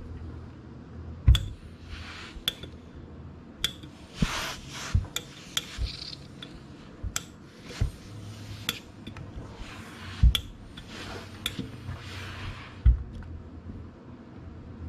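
Gravity-feed steam iron being set down and pressed onto fusible interfacing to bond it: about fifteen sharp knocks and clicks, the loudest with a dull thud, and several short bursts of hiss in between.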